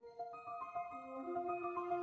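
Background music: soft sustained notes, mallet- or keyboard-like, entering one after another and slowly building.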